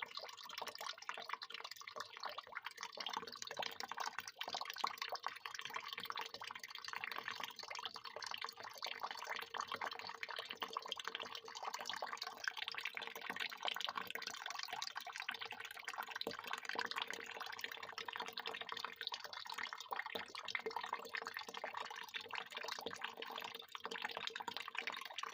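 Water pouring in a steady, continuous stream, splashing without a break.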